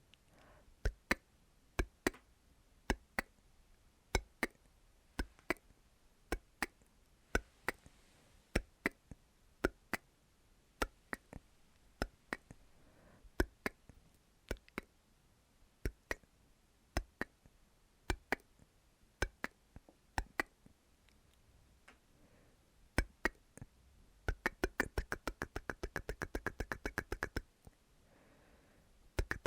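Close-miked mouth sounds: sharp tongue clicks ('tk-tk'), spaced a second or less apart, quickening into a fast run of clicks about three-quarters of the way through.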